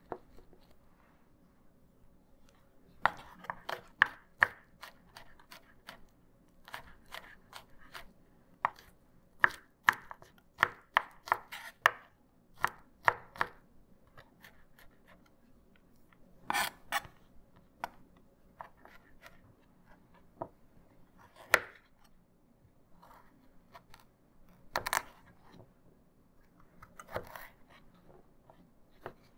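Firebox folding chef knife chopping garlic cloves on a cutting board: a quick, irregular run of blade taps against the board, then a few slower, separate cuts through a carrot.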